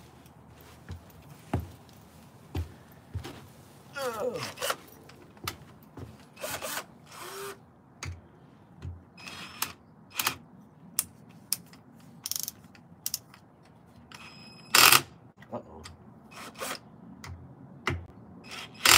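Cordless drill-driver running in a few short bursts as it drives the screws of an electric unicycle's pedal hanger, the loudest burst about three-quarters of the way in. Scattered clicks and knocks of the tool and parts being handled come between the bursts.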